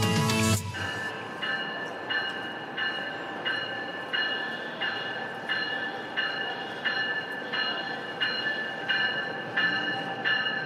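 Light-rail train bell ringing over and over, one strike about every 0.7 seconds, over the steady rumble of a station platform. Guitar music cuts off about half a second in.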